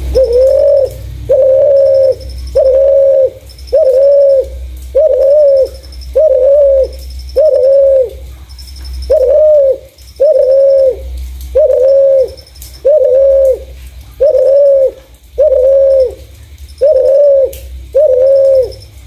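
Spotted dove (terkukur) cooing: loud low coo notes repeated at an even pace, about one every second and a bit.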